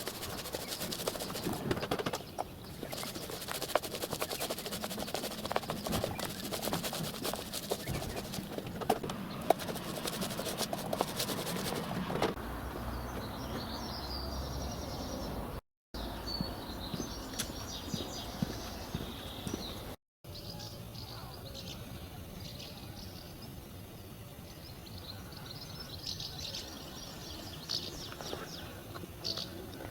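Outdoor ambience with small birds chirping repeatedly. The first part is dominated by a dense scratchy noise full of small clicks, which stops after about twelve seconds.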